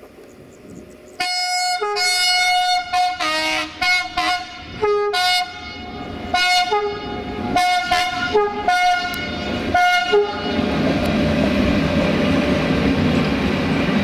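Class 060-EA electric locomotive's horn sounding a rapid string of short blasts, switching back and forth between a high and a low tone, for about nine seconds. Then the locomotive rolls past with a steady rushing noise and a low hum.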